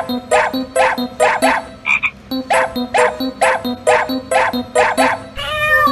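Background music with a steady, bouncy beat of short plucked notes, about two a second, with a brief break about two seconds in.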